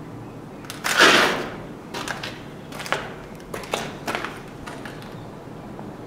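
Footsteps scuffing and shifting on a grit-strewn floor: one long scrape about a second in, then several shorter scuffs and knocks.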